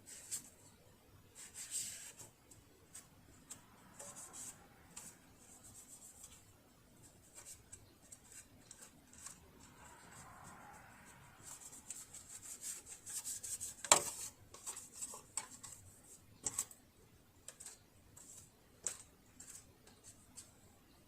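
Small handling sounds of work on a sewing machine being taken apart and oiled: light rubbing and scraping with scattered small clicks, and one sharp click about 14 seconds in.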